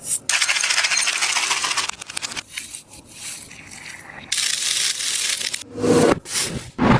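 A handmade tape-covered paper squishy crinkling and crackling as it is squeezed and rubbed by hand. There are two loud stretches of crinkling with quieter scraping between them, and a few knocks near the end.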